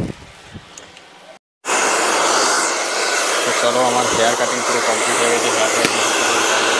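Handheld hair dryer blowing steadily on a client's hair. It cuts in abruptly about a second and a half in, after a short quieter stretch.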